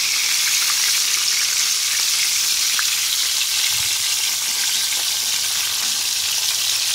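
Whole crappie frying in shallow hot peanut oil in a cast-iron skillet: a steady sizzling hiss with fine crackles.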